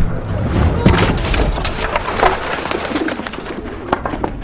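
Sword-fight sound effects: a run of sharp clashes and knocks, with short shouts and grunts from the fighters.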